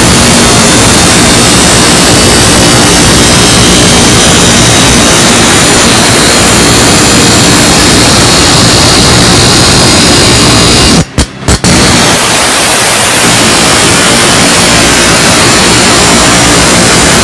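Bench grinder grinding the edge of a piece of sheet metal against its wheel: a loud, steady, harsh grinding noise that overloads the recording, broken by two short gaps about eleven seconds in.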